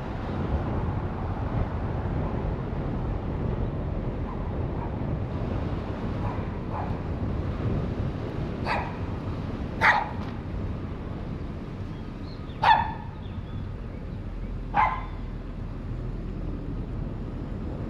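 A dog barking about six times, a second or more apart, the middle ones loudest, over the steady low rumble of the car driving.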